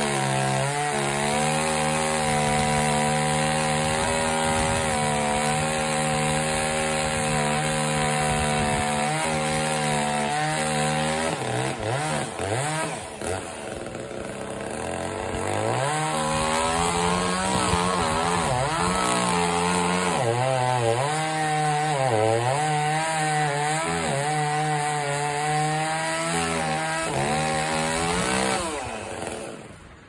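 Echo CS-355T top-handle two-stroke chainsaw running at full throttle through pine, its pitch dipping and wavering under load. The throttle eases for a few seconds near the middle, then it cuts again and falls away near the end.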